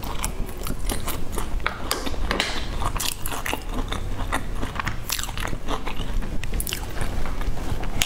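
Close-miked chewing and biting of spiced grilled skewered meat and vegetables: a dense run of sharp crunches.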